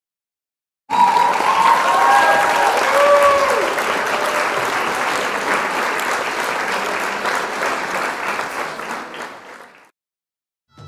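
Crowd applauding and cheering, with a few high gliding cheers in the first couple of seconds. It starts abruptly about a second in and fades away shortly before the end.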